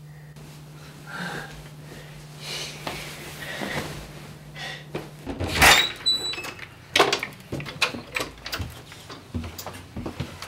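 A house door being opened, with a sharp bang about six seconds in, followed by a run of clicks and knocks. A steady low hum underneath stops about five seconds in.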